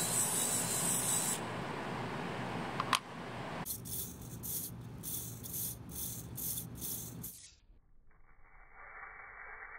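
Hobby micro servo modified for continuous rotation, its gearbox whirring as it spins a plastic arm, with a sharp click about three seconds in. Then a row of small hobby servos sweeping their horns back and forth, a gear buzz about twice a second, turning faint and muffled near the end.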